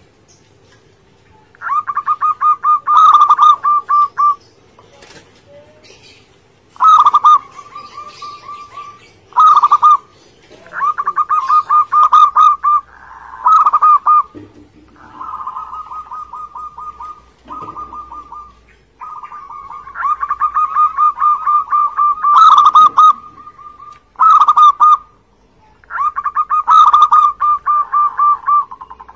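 Zebra dove (perkutut) singing: phrase after phrase of rapid, evenly repeated staccato coos at a steady pitch, each phrase lasting from under a second to several seconds, with short pauses between. Some phrases are loud and others softer.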